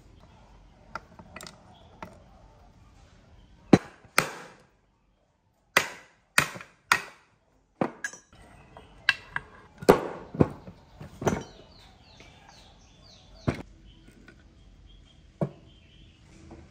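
Metal engine parts knocking and clinking as a small single-cylinder motorcycle engine is taken apart: a string of sharp clanks and taps, some ringing briefly, about fifteen in all and bunched between about four and twelve seconds in.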